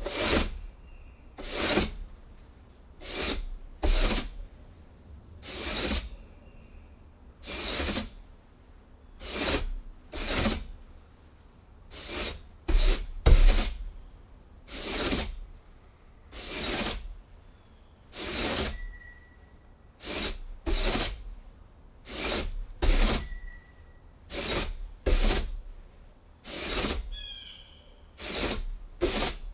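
Broom sweeping a wooden porch: brisk bristle strokes scraping across the boards at about one a second, a few falling close together.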